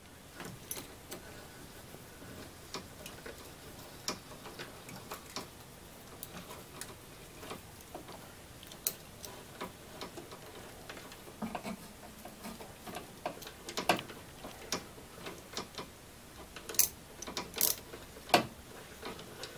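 Faint, scattered clicks of a ratchet on a long socket extension turning the drive-belt adjuster bolt, slackening the serpentine belt, with a few louder metal clinks near the end.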